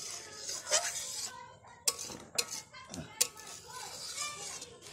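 Metal spoon clinking and scraping against a steel wok of steaming gongura leaves in water, with a few sharp clinks in the middle.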